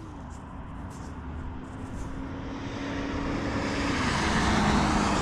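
A motor vehicle passing by: a steady engine note that drops in pitch as the rushing noise swells, peaking about four seconds in.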